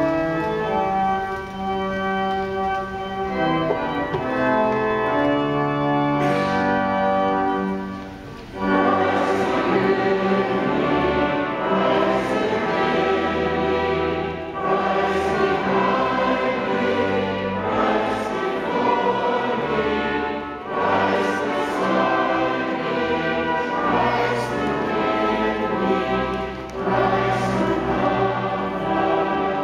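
Organ playing a hymn; about eight seconds in, the congregation joins and sings the hymn with the organ.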